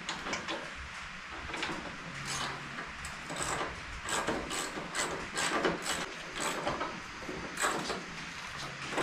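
Irregular metal clicks and scrapes of hands and tools working bolts into fender mounting holes, coming in quicker runs in the second half.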